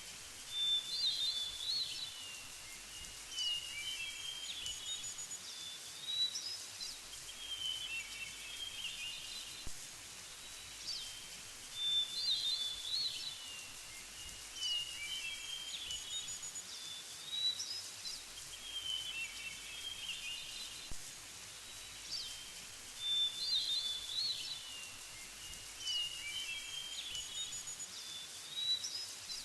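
A songbird singing the same short, high, warbled phrase over and over, every few seconds, over a steady faint background hiss.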